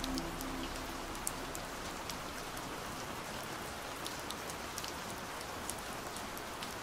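Steady rain, an even hiss with scattered sharp drop ticks. The last low notes of a song fade out in the first half second.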